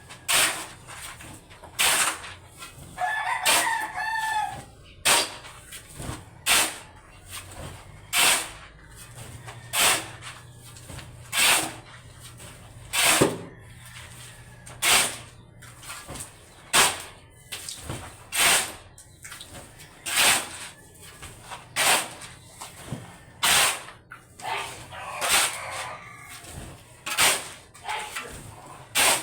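Repeated hard, noisy strokes of hand work, a strong one about every second and a half to two seconds with lighter ones between. A rooster crows twice over them, a few seconds in and near the end.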